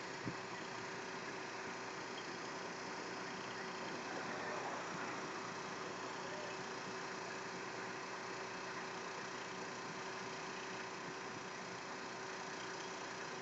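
Heavy tow truck's diesel engine idling steadily, with one sharp click just after the start.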